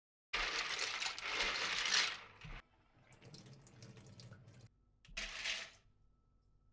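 Water running from a tap into a sink, in a long spell and then a short second one, with quieter splashing between.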